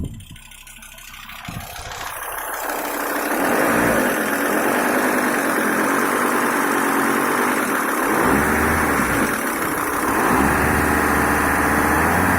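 Audi A6 C4's 2.5 TDI five-cylinder diesel engine running, getting louder over the first few seconds, then holding steady with its pitch rising and falling a few times in the second half. It has a knock that the owner cannot trace after checking the injectors, the vacuum pump, the hydraulic lifters and the timing.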